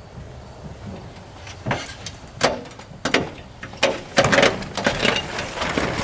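A string of knocks and clunks, roughly one every half second to second, over a low rumble.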